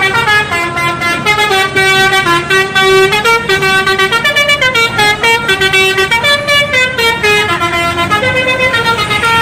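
Indonesian bus telolet horn, a multi-tone air horn, playing a quick tune of stepping notes that change every quarter to half second without a break.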